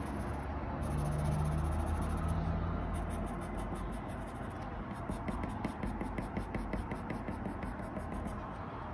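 HB graphite pencil scratching on paper in short quick strokes, about five a second, as fine lines are hatched into the iris of a drawn eye. A low hum fades out over the first three seconds.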